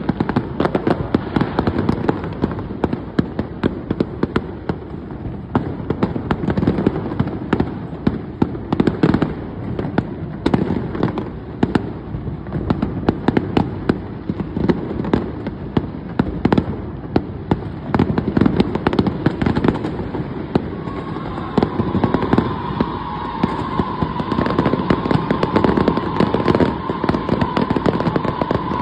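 New Year fireworks going off in a dense, continuous barrage of bangs and crackles. About two-thirds of the way through, a steady high tone joins in and holds to the end.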